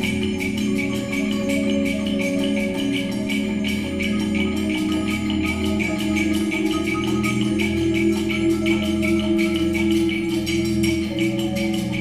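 Percussion ensemble of marimbas and other mallet instruments playing a constant stream of quick improvised notes over a common pulse, with held lower notes ringing underneath.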